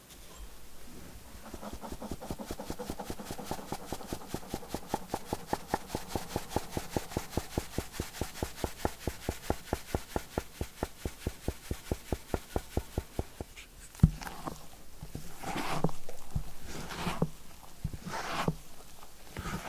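A stainless fine-mesh sieve tapped rapidly and evenly, about five taps a second, shaking cocoa powder and cake flour through into a glass mixing bowl, with a soft hiss of powder on the mesh. About fourteen seconds in there is a sharp click, then a spatula folding the flour into thick batter in the glass bowl in slow strokes about once a second.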